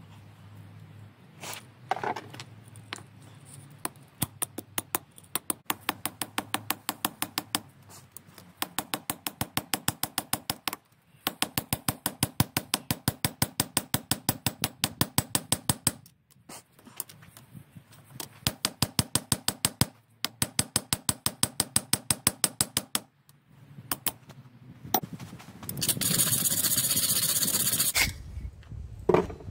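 Hand hammer striking a small steel trap part on an anvil in quick runs of ringing blows, several a second, with short pauses between the runs. Near the end, a couple of seconds of harsh scratching as a wire brush scrubs scale off the steel.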